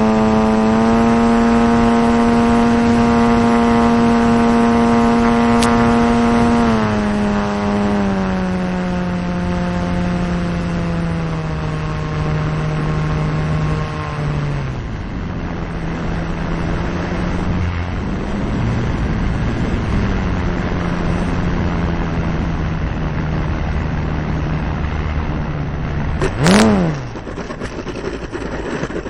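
Onboard sound of a radio-controlled T-28 Trojan model plane's motor and propeller: a steady drone that steps down in pitch about a quarter of the way in and again about halfway as the throttle is pulled back for the landing approach. Near the end comes a sharp bump with a quick up-and-down blip of pitch as the plane touches down on the runway, then a lower rolling sound.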